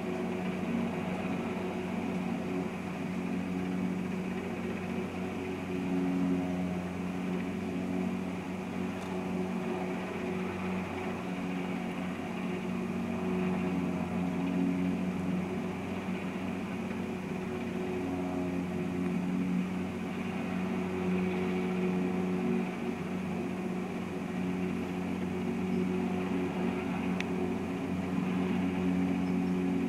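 Cargo helicopter hovering with a slung load, its engines and rotors making a steady, even drone heard through a window.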